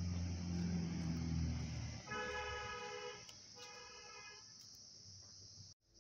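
A motor vehicle's engine rumbling close by, then two horn honks of about a second each, the second starting about half a second after the first ends.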